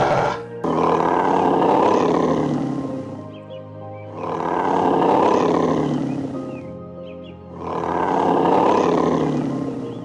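An animal calling three times, each call long and rough, swelling and fading over about two and a half seconds, over soft piano music.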